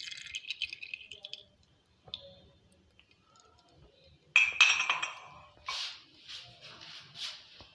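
Cooking oil pouring into a blender jar in a short trickle. A few seconds later comes a loud glassy clink, then several lighter clinks of glass and dishes.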